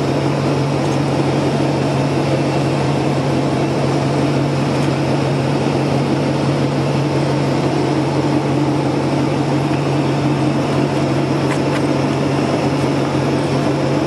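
Off-road 4x4's engine running at steady revs, a constant low hum that holds one pitch throughout.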